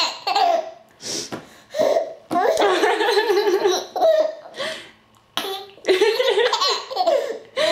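Baby laughing in repeated bursts of giggles and longer belly laughs while she has the hiccups, with hiccups breaking in between the laughs.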